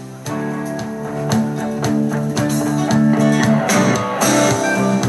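FM radio broadcast of music with guitar, playing through the speakers of a Panasonic RX-DT680 boombox to show that its tuner and both channels work.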